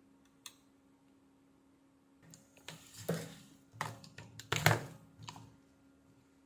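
A single sharp click, then a cluster of irregular knocks, clatters and scrapes of tools and small hard objects being handled on a workbench over about three seconds, under a steady low electrical hum.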